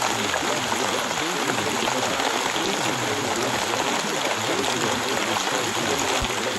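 Recorded rain, a steady, even hiss that does not change.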